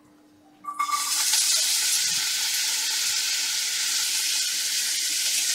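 Chopped pirandai (adamant creeper) stems hitting hot oil in a steel kadai, sizzling loudly from about a second in and holding steady as the pieces begin to sauté.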